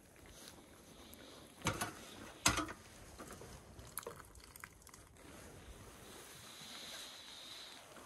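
Hot soup being ladled from a pot into a bowl: soft liquid sounds, with two knocks of the ladle against the cookware a little under a second apart, about two seconds in, and a small click a couple of seconds later.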